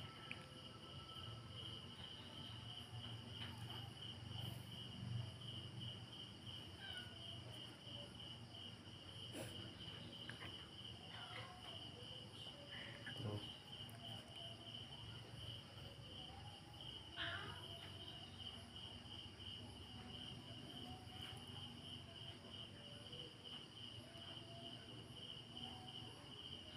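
A cricket chirping in a fast, even trill at one high pitch, steady throughout. Over it come a few faint knocks and scuffs from two cats play-fighting on a tiled floor.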